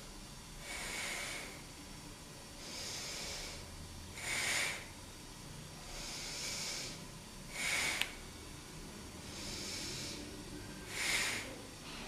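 A man breathing slowly and deeply through his nose, one breath every few seconds, with some breaths shorter and louder than others.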